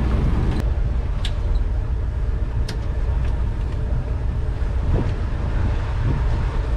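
Sea Ray Sundancer 370 motor yacht's inboard engines running with a steady low rumble, with a few faint clicks over it.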